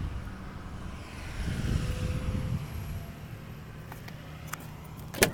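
Low rumbling wind and handling noise, then a single sharp click near the end as the SUV's door latch is opened.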